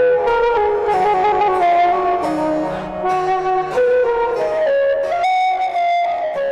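Instrumental intro music: a wind-instrument melody of held notes stepping up and down over a soft accompaniment.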